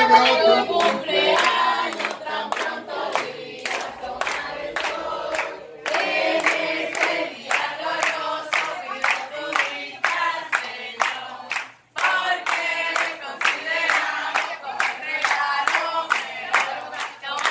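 A group of family and friends singing a birthday song together and clapping in time. The sound breaks off for a moment about twelve seconds in, then carries on.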